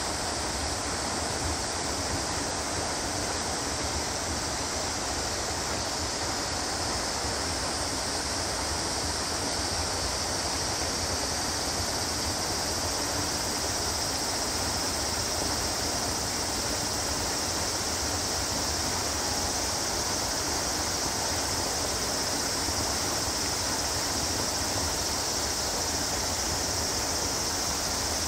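Steady outdoor ambience: an even high-pitched hiss over a low rumble, with no distinct calls or knocks. The hiss grows slightly stronger about halfway through.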